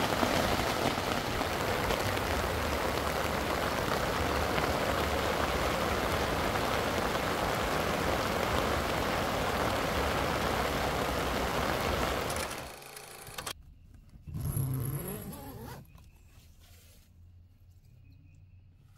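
Heavy rain falling steadily on a tent, a dense even hiss that cuts off suddenly about twelve seconds in, after which it is much quieter apart from a brief low sound a few seconds later.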